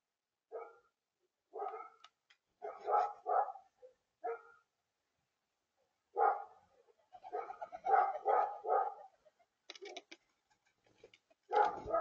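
Crows cawing: short, harsh calls given singly and in runs of several, with a long run of caws from about six to nine seconds in. A few sharp clicks come around ten seconds in.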